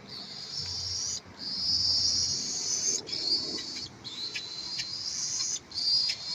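Baby cockatiel chick giving long, high-pitched calls, several in a row with short pauses between them.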